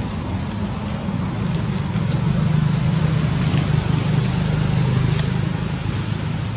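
A motor vehicle's engine running steadily, growing louder through the middle and easing off toward the end.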